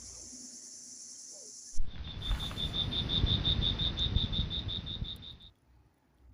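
A steady high insect hiss, then an abrupt cut to an insect's rapid, even chirping, about six pulses a second, over a low rumble. The chirping and rumble stop suddenly about five and a half seconds in.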